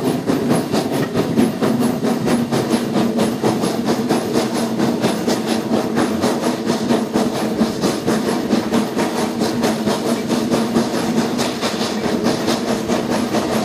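Peckett 0-6-0 industrial steam locomotive working hard, a rapid, even beat of exhaust chuffs over the rumble of the carriage wheels on the rails, heard from the carriage right behind the engine.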